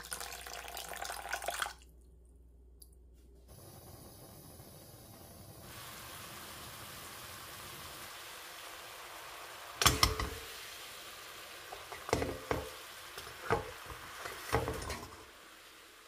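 Water poured onto a pile of sugar in a nonstick pan for about two seconds. After a short gap comes a steady hiss of sugar syrup boiling in the pan over a gas flame, with four sudden knocks in the second half.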